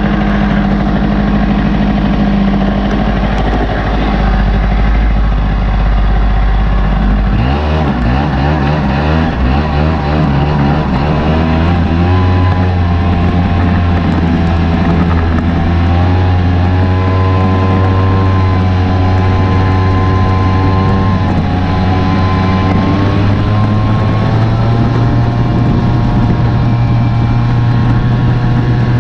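Suzuki LT80 quad's small two-stroke single-cylinder engine running, heard close up from a camera mounted on the quad. It runs steadily at first, then about seven seconds in it picks up and pulls away, its pitch rising and falling with the throttle as the quad is ridden.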